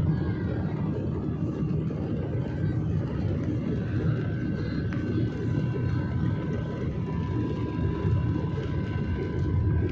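Jet airliner's underwing turbofan engines running at low power while the aircraft taxis, heard inside the cabin: a steady rumble with faint high whining tones.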